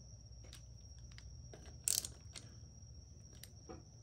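Scattered light metallic clicks and taps of hand tools and small parts being handled while the camshaft position sensor bolts are fitted, the loudest about two seconds in. Underneath runs a faint steady high-pitched whine and a low hum.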